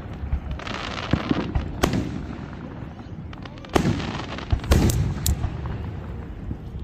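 Fireworks going off: a crackling stretch near the start, then several sharp bangs spread over a few seconds.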